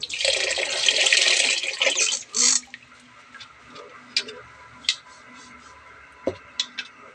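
Water pouring into a pot of washed glutinous rice for about two seconds, with a second short splash soon after, then a few light clicks and knocks.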